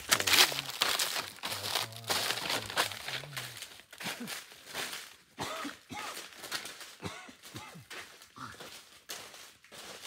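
Footsteps crunching through dry fallen leaves, loud at first and growing fainter as the walker moves away.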